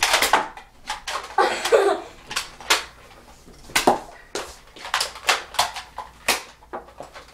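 An irregular string of sharp plastic clicks and knocks from toy Nerf blasters being handled and worked.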